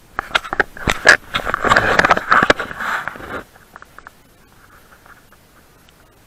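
Loud rustling and scraping right on the microphone, with sharp clicks, lasting about three seconds before it drops away: dry grass brushing against the camera.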